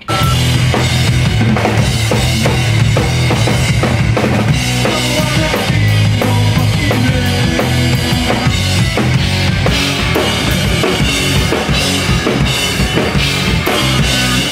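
Rock band playing at full volume in a rehearsal room: drum kit driving with bass drum and snare, under electric guitar and bass guitar.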